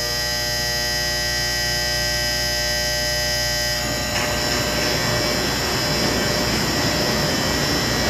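Power-operated doors of a large Dover hydraulic freight elevator closing: a steady electric buzz, then from about four seconds in a rougher mechanical rumble as the mesh car gate lowers.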